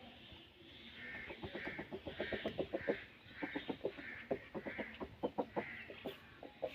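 Chickens clucking in rapid runs of short notes, several a second, with a brief pause about halfway through.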